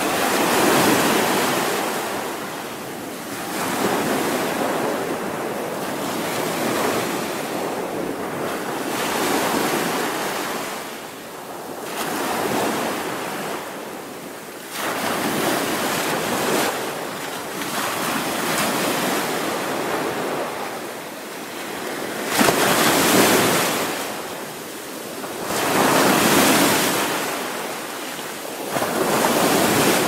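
Sea waves breaking on a shore, one after another. Each wave swells and then eases off over a few seconds, and the loudest breaks suddenly a little past two-thirds of the way through.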